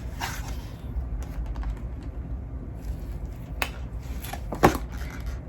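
Light handling of food packaging: a few sharp clicks and taps over a low steady rumble, the loudest of them in the second half.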